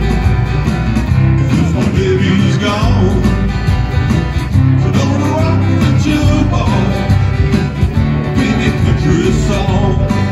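A male singer performing a song live into a microphone while playing an acoustic guitar, amplified through a PA speaker.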